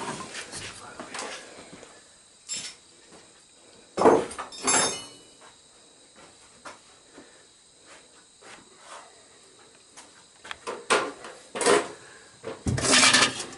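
Scattered metallic clinks and knocks of hand tools working against engine metal, loudest in a short cluster about four seconds in and again near the end.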